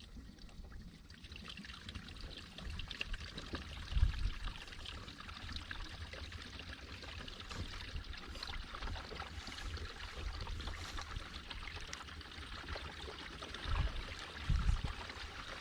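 Water trickling through a freshly repaired drain tile pipe, a steady flow that fills in about a second in. A few low bumps come around four seconds in and again near the end.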